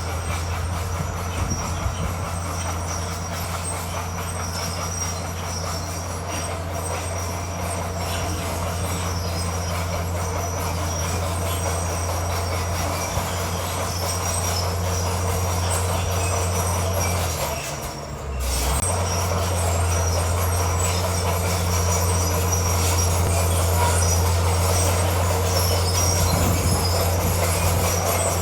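Crawler bulldozer at work: a steady diesel engine drone with the high squeal and clank of its steel tracks. The sound drops briefly about two-thirds of the way in, then comes back.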